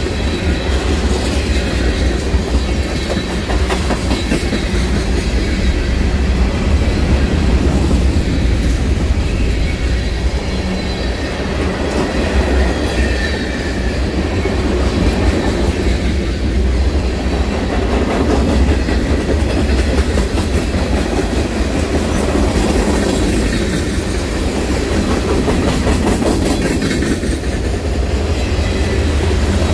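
Loaded and empty freight cars of a Canadian Pacific train (tank cars, covered hoppers, an autorack) rolling past on the adjacent track: a steady, loud rumble of steel wheels with clicking over the rail joints.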